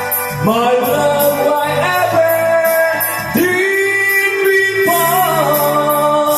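A love song playing: a voice holds long, wavering notes over keyboard backing with a steady beat.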